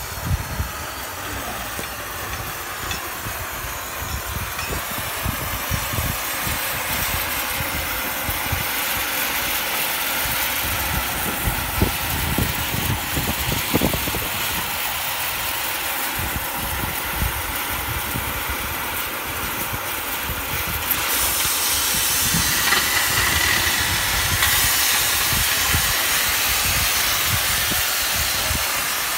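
CNC plasma cutting table's torch cutting steel plate: a steady hiss that gets louder and brighter about 21 seconds in, over an irregular low rumble of wind on the microphone.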